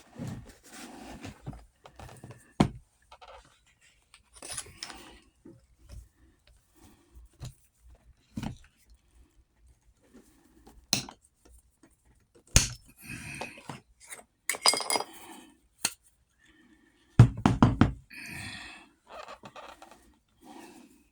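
Irregular clicks, knocks and thunks of hand tools working on a saddle's aluminum Blevins buckle hardware, with a burst of heavier thunks a few seconds before the end.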